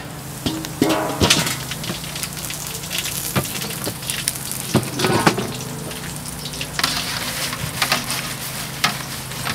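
Pork rinds frying in a metal fryer pot with a steady sizzle. Metal clinks and scrapes come from the basket and a metal utensil against the pot, loudest about five seconds in.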